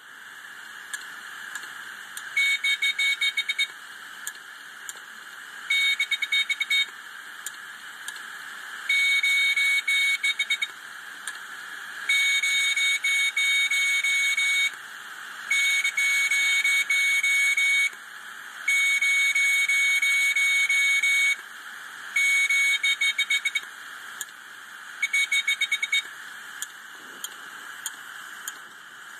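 Opened hard disk drive running with its lid off: a steady whir from the spinning platter, broken about eight times by a buzz from the read/write head actuator. Each buzz lasts one to two and a half seconds, and some stutter. This is what a hard drive is not supposed to do, a good sign that its data is lost.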